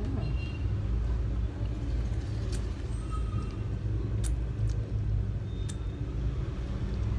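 A person sucking and chewing the flesh of a ripe lemon, with a few short, sharp mouth clicks heard over a steady low rumble.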